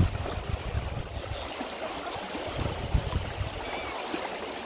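The fast, shallow Russian River rushing over gravel around a wading angler: a steady wash of water noise. A low rumble eases off after the first second and a half.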